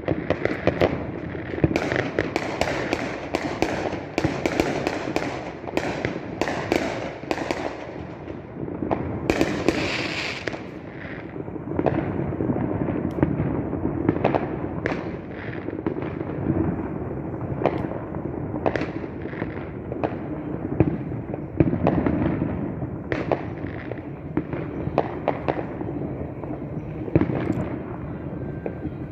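Fireworks going off continuously: a dense, steady barrage of cracks and bangs over a rumbling wash, with a brief hissing burst about ten seconds in.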